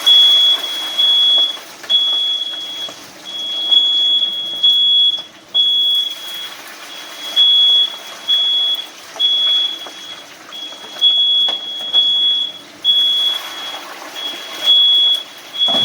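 Household smoke detector sounding its alarm: a shrill high-pitched beep repeated about twice a second in uneven groups, set off by smoke from chicken wings deep-frying in hot oil.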